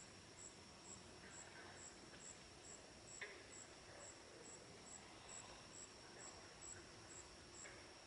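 Faint chorus of night insects, crickets: a steady high trill under a high chirp that repeats about twice a second, with one brief, slightly lower chirp about three seconds in.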